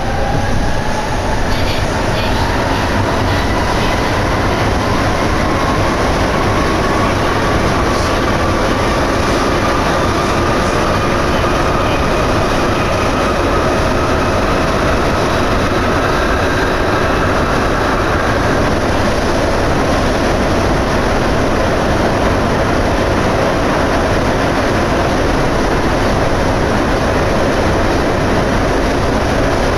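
Sapporo Namboku Line rubber-tyred subway car heard from inside while running between stations: a loud, steady rumble and rush of running noise. A motor whine rises in pitch over the first fifteen seconds or so as the train gathers speed, then fades into even cruising noise.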